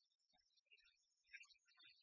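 Near silence: only faint, indistinct sound.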